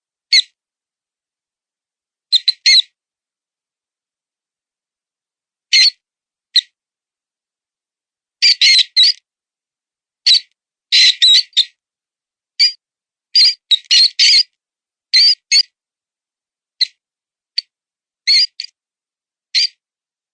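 Mouse distress squeaking, the call of a wounded mouse used as a predator lure: short, high squeaks, alone or in quick clusters of two to four, at irregular intervals with silence between.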